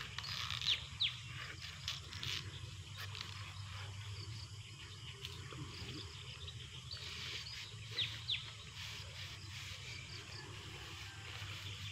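Outdoor insect chorus of crickets, a steady high hiss, with short falling chirps heard in two pairs: one near the start and one about eight seconds in.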